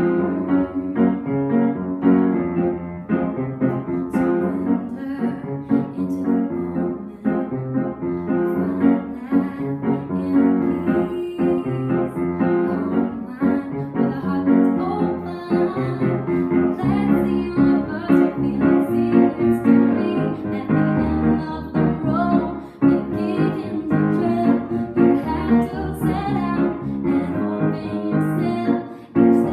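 Piano playing a song, with a woman singing over it.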